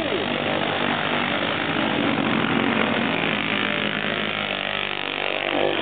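Several mud-racing ATV engines running under heavy throttle as the quads churn through a deep mud hole, a steady, dense engine noise.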